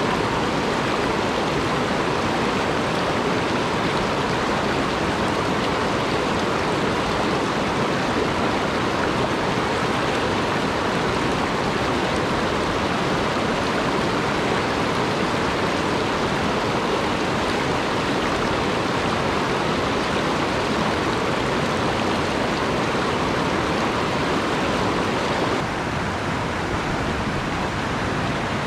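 Steady rush of a shallow, rocky mountain stream running over riffles and small rapids. Near the end it drops a little in level and changes tone, as at a different stretch of rapids.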